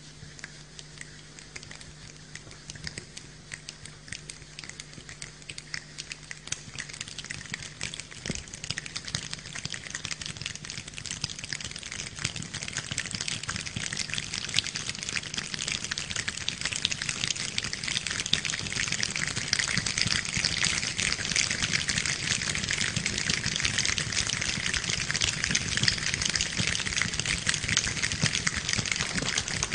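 A large choir imitating rain with their hands: a dense crackle of many finger snaps and hand rubs, like rain pattering. It starts faint and builds steadily into a loud downpour.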